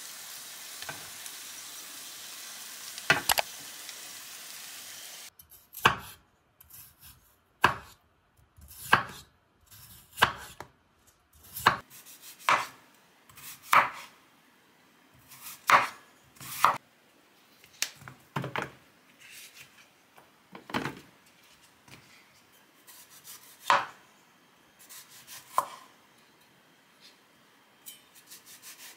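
Chef's knife slicing through raw potato onto a wooden chopping board: single sharp cuts, each ending in a knock on the board, one to two seconds apart. Near the end the knife is slicing a tomato. The first few seconds hold a steady hiss and a clatter as minced meat is scraped from a pan with a wooden spatula.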